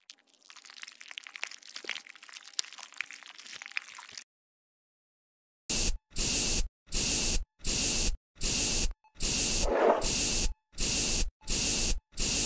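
Faint crackling for a few seconds, then an aerosol spray can hissing in about ten short, evenly spaced bursts.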